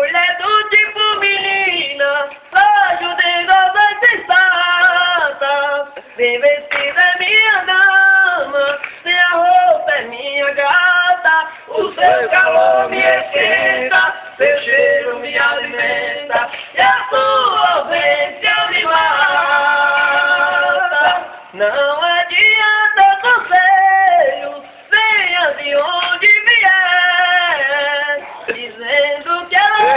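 Two men singing a toada, a Brazilian cowboy ballad, without accompaniment, in high voices with long drawn-out notes, one held for a few seconds about two-thirds of the way through.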